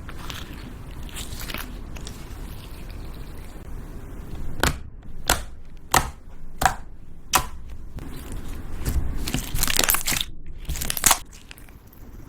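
Slime being mixed and squeezed by hand: steady handling noise, then a run of five sharp pops about two-thirds of a second apart, then denser crackling near the end.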